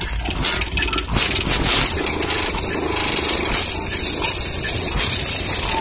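Very loud bass from four 15-inch DB Drive WDX car subwoofers on about 2,000 watts RMS, heard from outside the vehicle. The bass overloads the recording into a harsh, crackling distortion.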